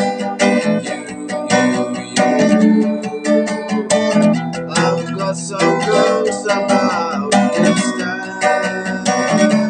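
Acoustic guitar with a capo on the neck, strummed in a steady rhythm of chords.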